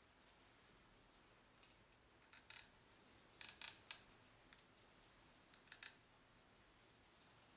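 A few faint, sharp clicks in three small groups over a near-silent room, from a hot glue gun being picked up and worked against a fabric lampshade.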